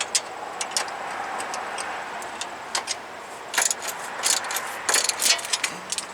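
Metal hand tools clicking and clinking against steel suspension parts, a run of short, irregular taps that come thickest in the second half.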